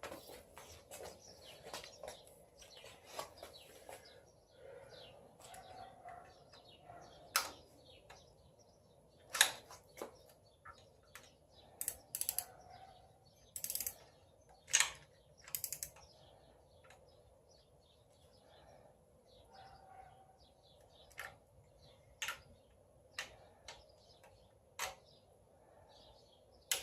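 Irregular clicks and metal clinks of hand tools as bolts on an engine's front accessories are tightened and torqued down, with a few sharper, louder clacks among them.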